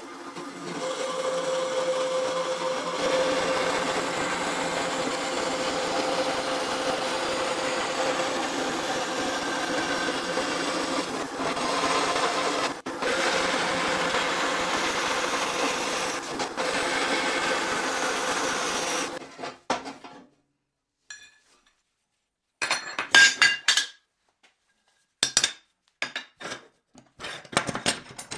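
Vertical bandsaw running and cutting through a metal plate: a steady cutting sound with a held tone, stopping about two-thirds of the way through. After it come a few short, sharp clicks and knocks.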